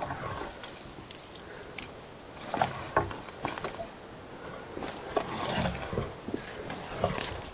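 Footsteps crunching through dry sticks and leaf litter in scrub, with irregular crackling, brushing against branches and a few sharper twig snaps.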